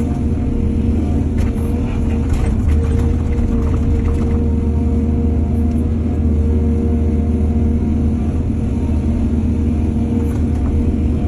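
Excavator engine running steadily with a low rumble, with a few faint knocks between about one and four seconds in.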